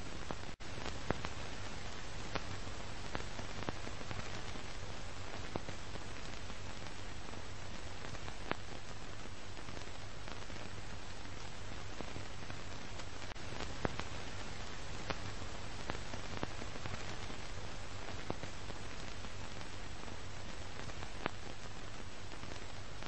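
Steady hiss with a low hum and scattered clicks and pops: the surface noise of an old film soundtrack, with a brief dropout about half a second in.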